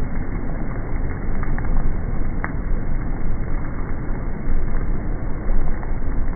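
Heavy rain and strong wind: a dense steady rushing with a heavy low rumble of wind, and a few sharp ticks of drops striking.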